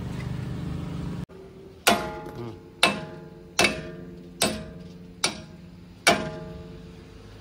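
A steady low hum cuts off about a second in. Then a hammer strikes steel six times, about one blow every 0.8 seconds, each ringing briefly, as the broken wheel studs are knocked out of a truck's wheel hub.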